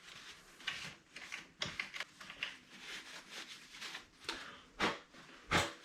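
Light clicks, taps and rustling from handling a mountain bike saddle and its seatpost clamp, with two louder knocks near the end.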